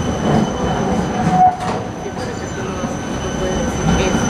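A Siemens Combino low-floor tram rolls close past on curved track, its running gear rumbling, with steady high wheel squeal from the curve. A brief louder note comes about a second and a half in.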